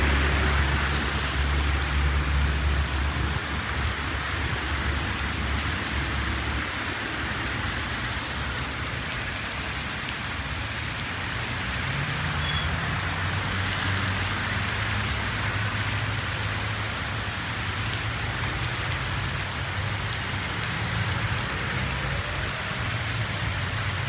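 Heavy rain falling steadily on a wet street, with cars driving through the water on the road. A low engine rumble from passing traffic stands out for the first six seconds or so.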